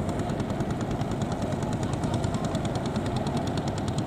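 Engine of a homemade rice combine harvester running steadily with a rapid, even beat.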